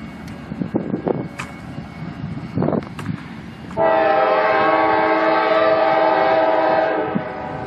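Diesel freight locomotive's multi-chime air horn sounding one long, steady blast of about three seconds, starting about four seconds in and cutting off abruptly. Before it there is steady background noise with a few sharp clicks.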